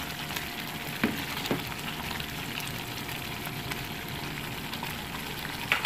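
Creamy chicken sauce simmering in a pot with a steady sizzling bubble, a wooden spoon stirring through it and knocking lightly a couple of times about a second in.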